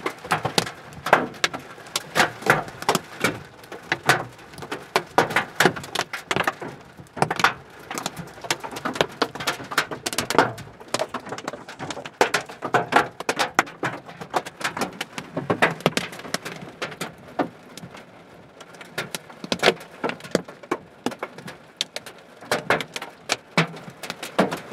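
Hailstones pelting a car's roof and windshield, heard from inside the cabin: a dense, irregular clatter of hard knocks, several a second, some much louder than others.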